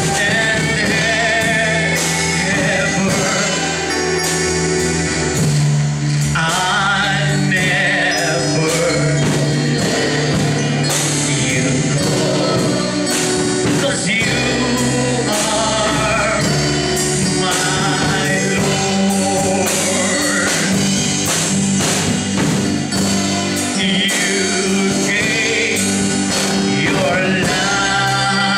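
A man singing a worship song into a handheld microphone, over instrumental accompaniment with a steady beat.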